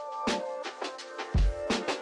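Background music: a drum beat with deep kick drum hits and sharp snare-like hits over held chords.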